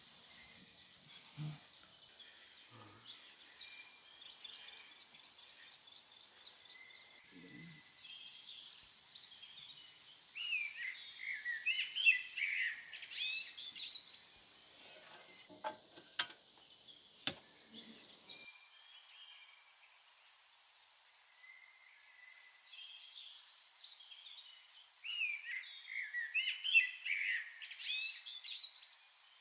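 Birds chirping and singing, with one bird's loud run of rapid notes heard twice, once in the middle and again near the end. A few faint knocks come just after the middle.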